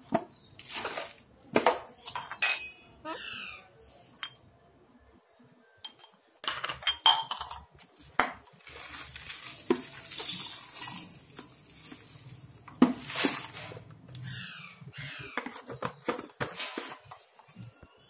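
Stainless-steel tumbler clinking and knocking against the tile floor as it is handled, with birdseed poured into it in a hissing, rattling stream about ten seconds in, followed by a sharp knock.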